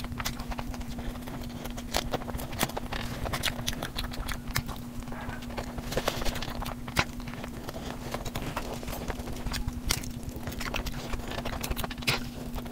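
Close-miked eating sounds: wet chewing and lip smacks as spicy chicken curry and fried cheese balls are eaten by hand. They come as an irregular run of small clicks and smacks over a steady low hum.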